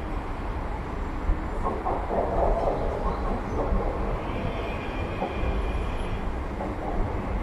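Marmaray commuter electric train running in along the platform, with a steady rumble of wheels on rail. A high wheel squeal starts about four seconds in and lasts a couple of seconds.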